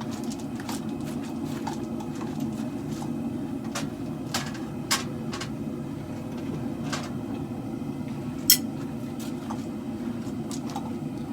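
Two-burner propane forge running with a steady low rushing noise, with scattered light clicks and one sharper click about eight and a half seconds in.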